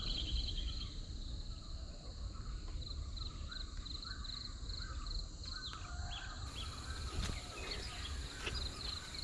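Outdoor insect chorus: insects chirping in repeated short high pulses, about three a second, over a steady high drone. A few faint bird chirps and a low rumble sit beneath it.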